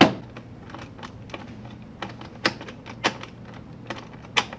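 Hard plastic robot-arm parts clicking and knocking as they are handled and fitted together, with a screwdriver working on the screws. It is a run of irregular sharp clicks and taps, the loudest at the very start.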